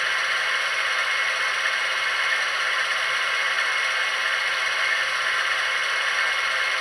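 ESU digital sound decoder in an HO-scale BR 232 'Ludmilla' diesel locomotive model playing the diesel engine's idle through the model's small loudspeaker: a steady, rattly hum, thin with little bass.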